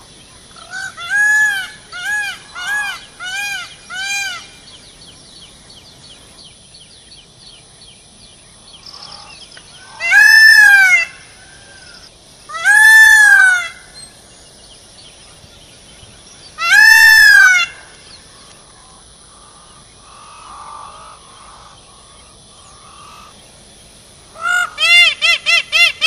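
Male Indian peafowl (peacock) calling: a run of about six short calls that rise and fall in pitch, then three long, loud calls a few seconds apart, and near the end a fast series of short calls.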